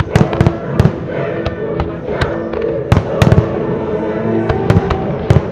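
Aerial firework shells bursting in a rapid, irregular string of sharp bangs, a dozen or more, over music.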